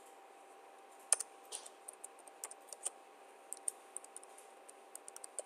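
Typing on a computer keyboard: irregular keystroke clicks in short runs.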